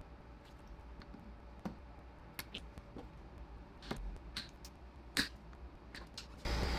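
Scattered small clicks and snaps of hand tools and staples being handled against a plastic car bumper, the loudest about five seconds in. Near the end a handheld rotary tool switches on and runs steadily.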